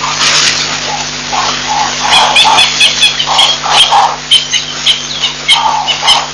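Baboons handling a wildlife camera at close range: scraping and rubbing on the housing, then from about two seconds in a run of sharp, irregular clicks and knocks, mixed with the baboons' own sounds. A steady electrical hum from the camera runs underneath.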